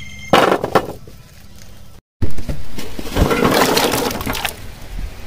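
Palmyra sprouts tipped off a steel plate, knocking against the metal and splashing into a steel pot of water, for about two seconds in the second half. A short clatter comes about half a second in.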